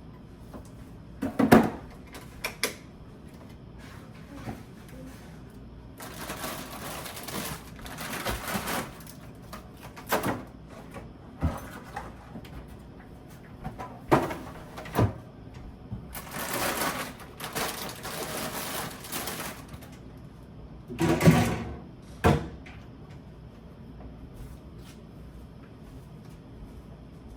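Household handling noises from putting groceries away: a series of knocks and clicks as items and containers are set down, with two stretches of rustling a few seconds long.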